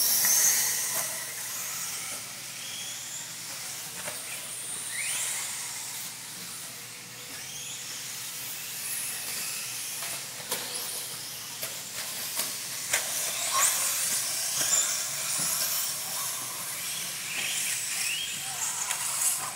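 Several radio-controlled off-road cars racing on a clay track: a steady high hiss of motors and tyres, with motor whines that rise and fall as the cars accelerate and brake, and sharp clacks now and then.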